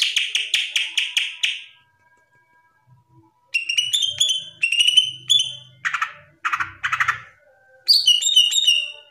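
Cucak ijo (green leafbird) singing: a rapid repeated trill that stops in under two seconds, then after a short pause, phrases of clear, quick whistled notes broken by three harsher, lower notes.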